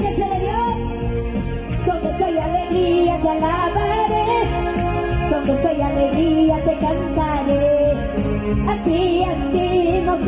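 Upbeat live Christian praise music: a steady beat under a wavering melody line.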